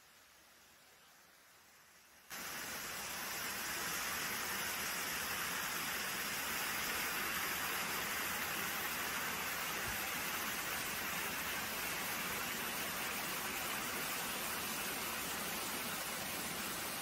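Steady rush of a waterfall: lake overflow water pouring down a spillway. It cuts in abruptly about two seconds in, after a very quiet start.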